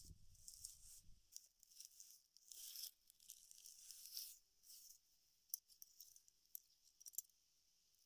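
Faint rustling and scratching of dry palm fiber sheets being handled and pressed around a broom handle, in uneven bursts through the first five seconds, then a few sharp little clicks near the end.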